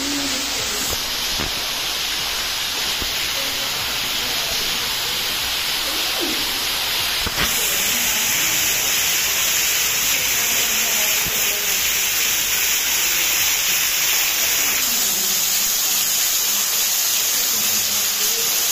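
Steady rush of flowing creek water. The sound shifts abruptly twice, with a click and a step up in level about seven seconds in.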